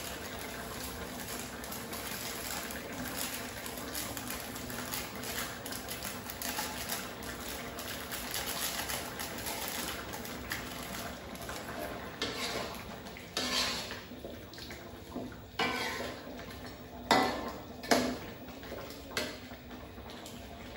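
Metal cooking utensils clanking against a wok and pot: about six sharp knocks spread over the second half, over a steady hiss.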